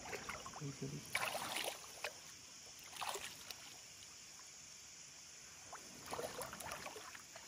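Water splashing and dripping as a cast net is hauled in through shallow water and lifted out, in three short bursts: about a second in, around three seconds, and again near the end.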